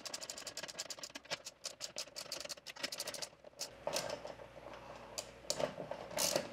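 Ratchet with a 10 mm socket clicking quickly as nuts are run down onto roof-rack bolts, about ten clicks a second for the first three seconds, then a few scattered clicks and bits of metal handling.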